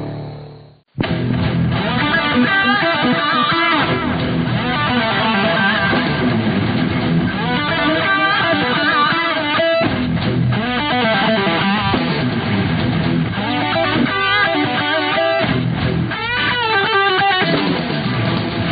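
Rock music with electric guitar and bass, starting about a second in after a brief cut to silence.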